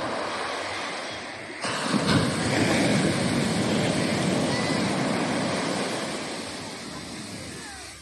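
Ocean surf: a wave breaking and washing up the beach as a rush of foaming water. The rush jumps louder about one and a half seconds in, then slowly fades away near the end.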